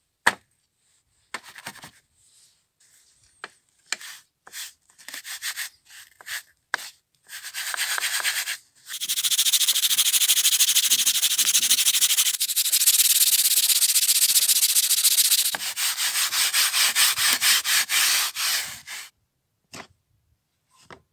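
Steel wool pad and damp sand scrubbed by hand against a rusty steel crosscut saw blade, scouring off the rust: a few short scrapes at first, then fast, continuous back-and-forth scrubbing for about ten seconds that stops shortly before the end.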